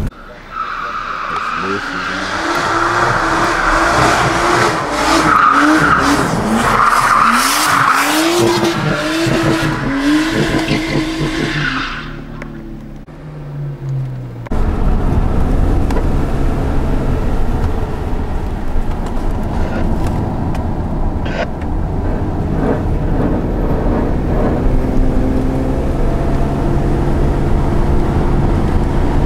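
Nissan Skyline drift car sliding through a bend: the engine revs up and down over and over while the tyres squeal, fading away about twelve seconds in. After a cut, a car's engine and road noise run steadily inside its cabin.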